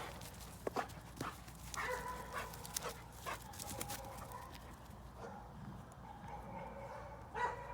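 A dog whining softly at intervals, with scattered sharp clicks.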